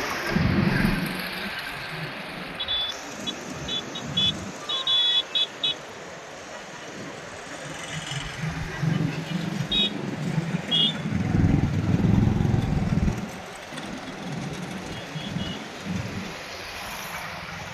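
Outdoor ambience of passing road vehicles, with a steady rumble that swells and fades and short high beeps in quick clusters, like vehicle horns.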